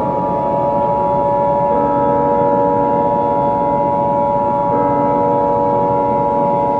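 Emergency Alert System attention signal: a loud, steady two-tone beep held without a break, over a lower background drone whose notes change a couple of times.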